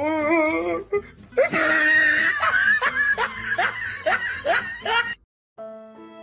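A person laughing hard in quick repeated bursts. It breaks off about five seconds in, and soft music with long held notes begins near the end.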